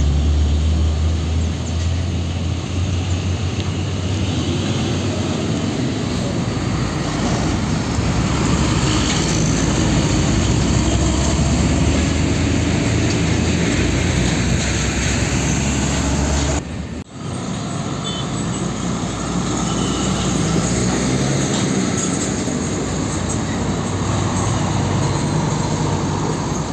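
Heavy diesel tanker trucks passing close by: the low engine rumble and tyre noise of a Hino tractor unit pulling a tank-container trailer, then after a short break about 17 seconds in, another tractor-trailer tanker rolling past.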